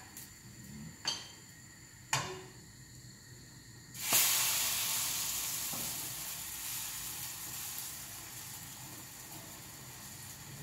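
Potato pancakes frying in oil in a frying pan: a few sharp taps of a utensil on the pan, then about four seconds in the sizzling flares up suddenly and loudly and slowly dies down again.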